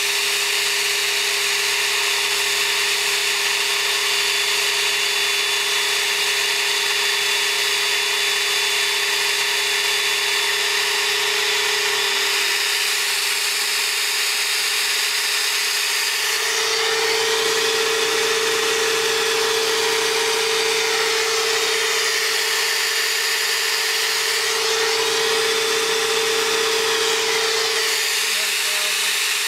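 Cylinder-head flow bench running steadily during a flow test, its motor drawing air through a ported Studebaker cylinder head's intake port past a partly opened valve. The steady hum with its whine shifts in tone twice, about 16 and 25 seconds in, as the valve lift is stepped up.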